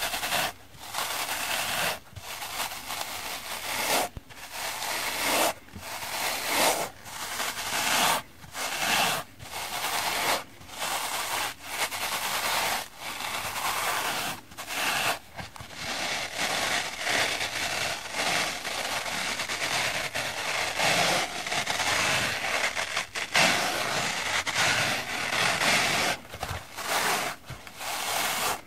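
Two dry foam kitchen sponges with scouring-pad backs rubbed against each other by hand: a scratchy rubbing in repeated strokes about a second long with short breaks between them, becoming more continuous about halfway through.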